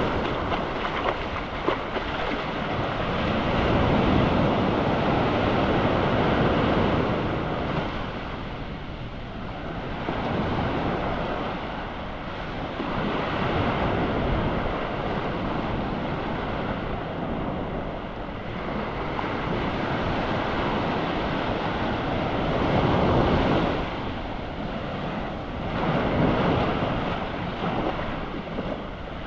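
Surf washing onto the beach, the rush of the waves swelling and fading every several seconds, with wind on the microphone.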